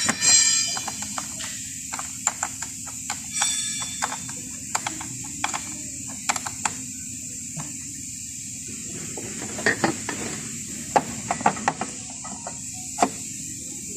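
Scattered irregular clicks and knocks of hand tools working on a car battery, over a steady hum.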